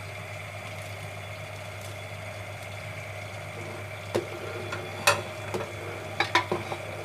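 A steel spoon stirring in a steel pot of thickening milk and rice, giving a handful of short metal clinks and knocks in the second half, the loudest about five seconds in, over a steady low hum.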